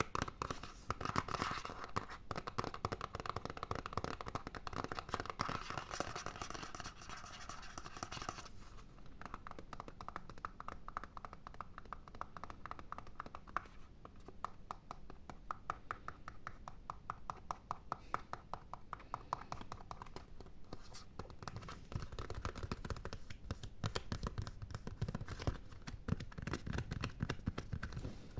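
Fast, close-miked scratching, an ASMR scratching trigger: dense rapid strokes, brighter and louder for the first several seconds, then softer, with heavier, deeper strokes near the end.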